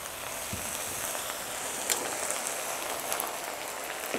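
Hot caramelised sugar syrup sizzling and bubbling in a frying pan as grated coconut is stirred into it with a spatula, with a few light clicks of the spatula against the pan.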